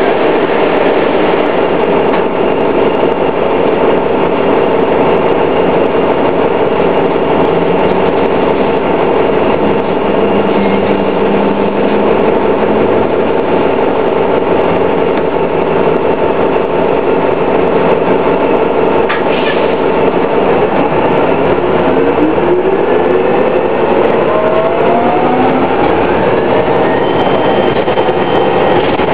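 2000 New Flyer D60 articulated bus running, its Detroit Diesel Series 50 four-cylinder diesel and Allison B400R transmission giving a steady drone laced with whine. Over the last third several whining tones rise steadily in pitch as the drivetrain speeds up.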